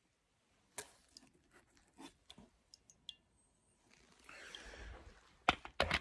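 Faint, scattered drips and small clicks of fluid running from the end of IV tubing into a glass cup, a few with a short glassy ring. About four seconds in comes a soft rustle, then a few louder knocks of handling near the end.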